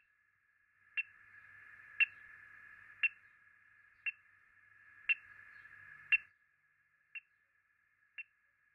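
VHF radio-tracking receiver sounding a radio tag's pulses: short beeps about once a second over receiver hiss. The beeps swing between loud and faint as the directional antenna is swung, and they are loudest when it points toward the tagged animal.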